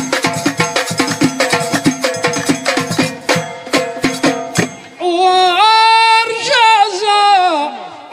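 Fast, steady rhythmic hand clapping by a line of performers in Amazigh ahwach folk music. About five seconds in the clapping stops and a chorus of voices sings long held notes that slide between pitches.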